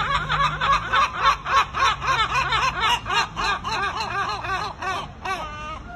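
Two large gulls giving their long call together: a fast run of repeated laughing, yelping notes, about five a second, that tails off near the end.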